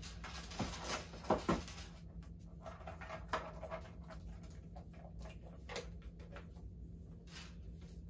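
Small clicks, taps and rustles of hands fitting a gold chain strap and its metal clasps onto a small handbag, loudest about a second in.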